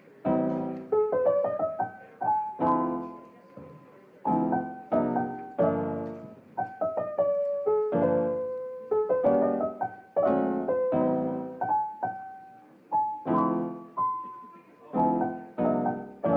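Background music: a solo piano playing chords and short melodic phrases, each struck note dying away.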